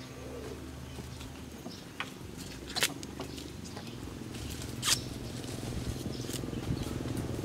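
Green husks being torn off ears of fresh corn by hand: crisp rustling broken by a few sharp ripping snaps, the loudest about three and five seconds in.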